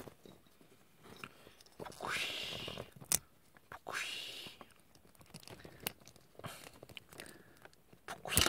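Small hard-plastic action-figure parts being worked by hand: short scraping, rustling passages and a few sharp clicks as pieces are pressed and pulled at their joints.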